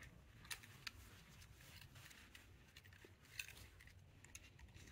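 A few faint clicks and scrapes of a metal pick tool working at the seam of a plastic Mazda key fob housing, prying it apart.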